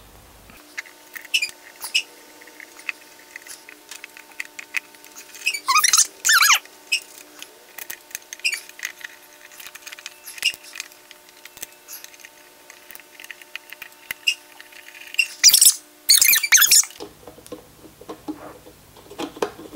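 Bolts being turned with a hex key into electromagnet mountings on a steel plate: scattered light metal clicks and ticks, with two louder squeaky stretches of wavering pitch, about six seconds in and again around fifteen to seventeen seconds in.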